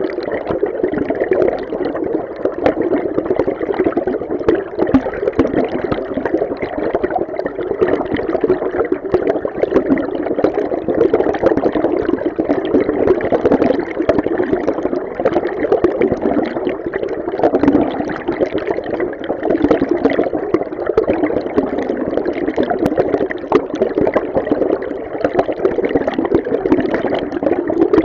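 River stream heard underwater: a steady, muffled rush of flowing water with a fine bubbling flicker.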